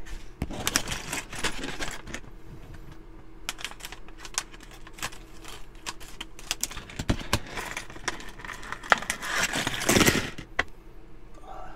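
Metallised plastic blind bag crinkling as it is handled, snipped open with scissors and pulled apart, with many small sharp clicks. The loudest crinkling comes about ten seconds in, as the bag is torn open.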